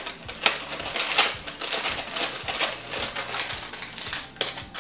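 Tissue paper rustling and crinkling in a cardboard gift box as it is handled and folded back, in quick irregular rustles with light taps.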